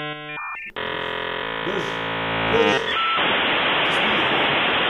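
56k dial-up modem connecting over a phone line. Handshake tones and chirps come first, and from about halfway in a steady hiss of scrambled data.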